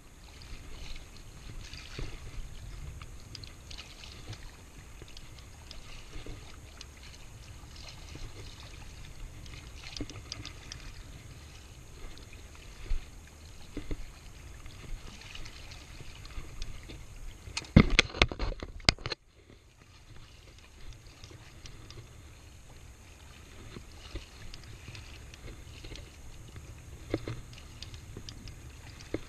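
Shallow water sloshing around a wading angler, with small knocks and clicks from handling the spinning rod and reel. About two-thirds of the way through comes a short cluster of louder knocks, then the sound drops off suddenly for a moment.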